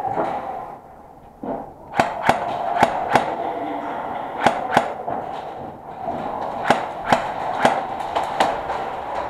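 Airsoft guns firing single shots: about eleven sharp cracks in pairs and small groups, starting about two seconds in, over a steady background hum.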